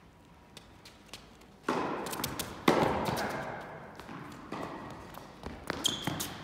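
Tennis ball hits echoing in a large indoor hall. A racket strikes a serve about a second and a half in, and a much louder hit follows about a second later, each ringing on. A few short high squeaks from shoes on the court come near the end.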